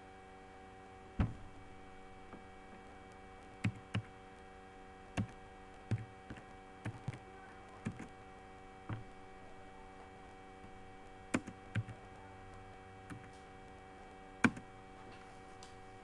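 Computer mouse button clicking: single sharp clicks at irregular intervals, one every second or so, with some close pairs, over a steady electrical hum.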